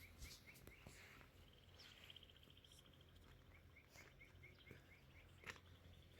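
Near silence with faint bird calls: a series of short chirps repeating a few times a second, near the start and again in the second half, and a brief fast trill in between.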